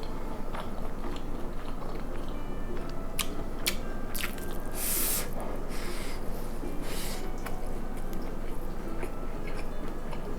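Close-miked chewing and biting of food, wet mouth sounds of eating. A few sharp clicks and short louder bursts come about halfway through.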